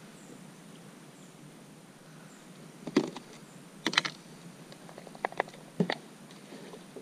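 Sharp clicks and knocks of hard plastic: a yellow lid and a worm container being handled on a plastic kayak deck. A few scattered clicks start about three seconds in, with the loudest near three and four seconds.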